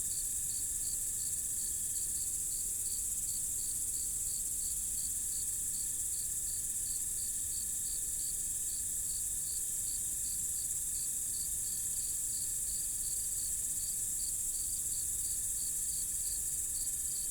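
Night insect chorus: a dense, steady, high-pitched drone of insects with a cricket chirping in an even rhythm, about three chirps a second, over a faint steady trill.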